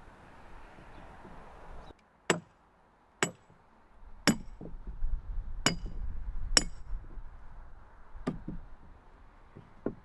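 A hand carving tool striking the wood of a dugout canoe log about seven times at an irregular pace. Each blow is sharp, and several have a brief metallic ring.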